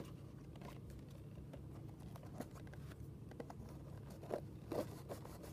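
Small cardboard blind box handled and picked open by hand: faint scraping and tapping of fingers on cardboard, with a couple of louder scuffs near the end.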